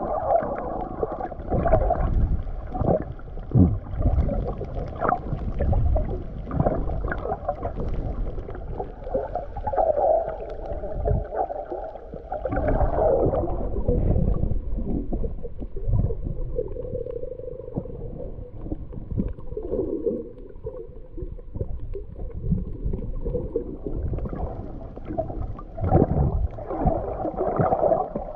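Muffled underwater sound through a GoPro's waterproof housing: water washing and gurgling past the camera with irregular low rumbles as the swimmer moves, dropping somewhat quieter for a stretch in the middle.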